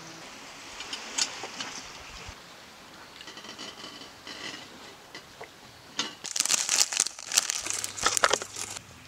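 A plastic packet crinkling and rustling in loud bursts over the last three seconds, as dried mushrooms are handled into a stainless cooking pot. Earlier there are a few light clicks of a metal chain being hooked to the pot.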